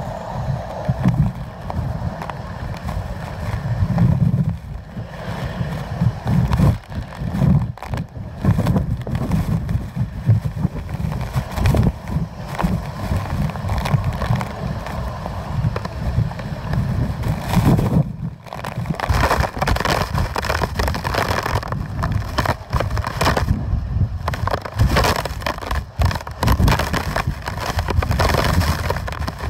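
Hurricane-force wind gusting against the microphone: a heavy, uneven rumble that swells and drops with each gust, under a rushing noise that gets stronger in the second half.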